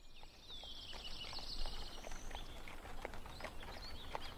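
Faint outdoor nature ambience: a fast, high bird-like trill from about half a second to two seconds in, then scattered short chirps, over a few irregular light clops.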